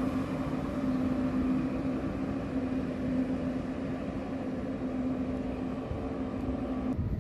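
Frecciarossa ETR 500 high-speed train pulling slowly into the station, giving a steady electric hum with one held low tone over a rumble. The sound cuts off suddenly near the end.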